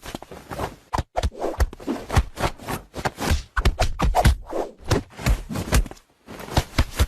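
A rapid, irregular run of knocks, thumps and scuffling, with a short pause about six seconds in.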